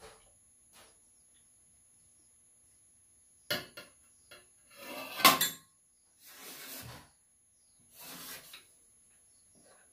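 Metal spoon and a cup clattering on a round metal serving tray: a sharp clink about three and a half seconds in, the loudest knock about five seconds in, then two shorter scraping sounds.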